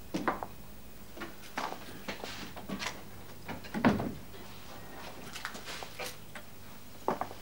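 Irregular light knocks and clicks, with one heavier, deeper thump about four seconds in.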